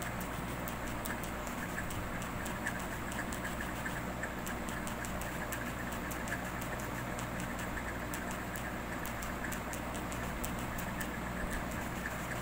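Steady low machine hum with faint, irregular ticking over it.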